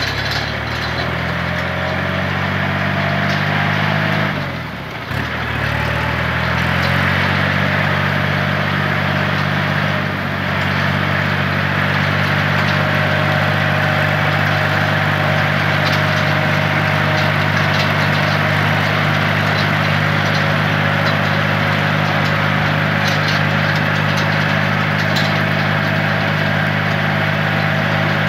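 Kubota tractor's diesel engine running steadily under way. Its revs dip about four seconds in and pick back up a couple of seconds later.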